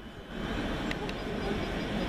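Steady airport background noise: a low rumble of distant engines with a hiss over it, and a couple of faint ticks about a second in.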